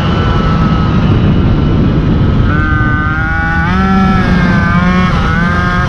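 MBK 51 moped's two-stroke single-cylinder engine running under way, its note holding steady, then climbing as the throttle opens, dipping briefly about five seconds in and rising again.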